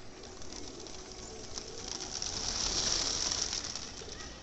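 A flock of domestic pigeons taking off, the flutter and clatter of many wings swelling about two seconds in, loudest near three seconds, then easing.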